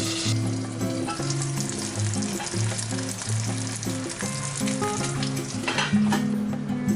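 Food sizzling in a pan, with light stirring, under background music with a steady melody. The hiss is loudest at the start, drops off about a third of a second in, and swells again briefly near the end.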